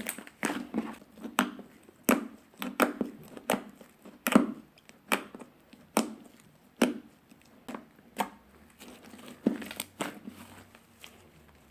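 Slime being kneaded and mixed by hand, giving irregular sharp pops and clicks about one or two a second, which thin out near the end.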